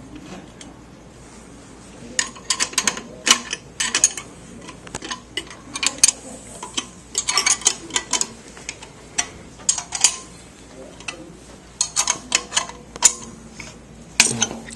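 Runs of quick, light metallic clicks from hand tools and metal parts as a transducer mounting blade is fitted to a pipe clamp and its set screw is tightened with a wrench.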